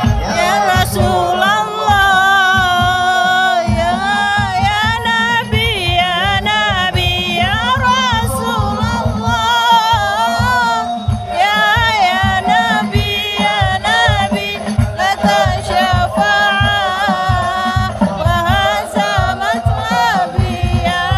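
Live sholawat, Islamic devotional singing: a melismatic voice winding up and down over a fast, steady percussion beat through a loud PA system.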